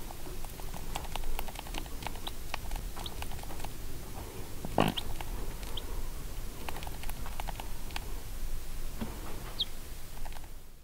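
Icelandic hen and her chick in a brooding crate: the chick gives a few short, high peeps, and the hen makes a low cluck about five seconds in, over light scattered clicks and rustles in the wood shavings.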